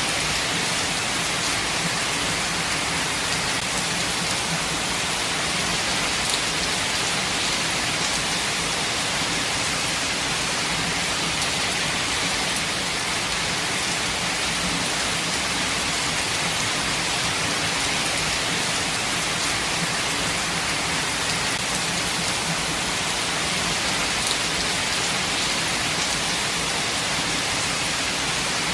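Steady rain falling, an even hiss with a few faint drops ticking now and then.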